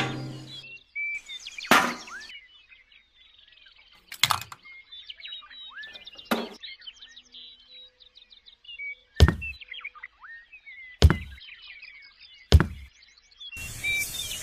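Birds chirping, with six sharp knocks spaced irregularly a second or two apart; the knocks are the loudest sounds.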